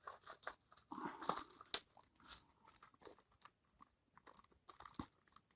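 Packaging of a small mail package crinkling and tearing as it is opened by hand: a run of faint, irregular crackles.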